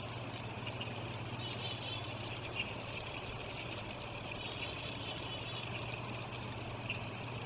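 Flowing river water with a steady low hum underneath, and faint high chirping calls now and then.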